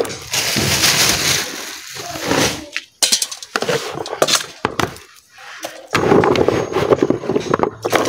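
Water sloshing and splashing in a plastic basin as turmeric roots are washed and rubbed by hand, in three bursts with short pauses between.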